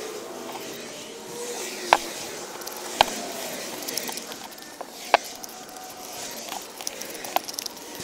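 Hands mixing Satanite refractory mortar into a wet paste in a metal can, over a steady background noise. Three sharp clicks, about two seconds in, a second later and again about five seconds in, are fingers knocking the tin can.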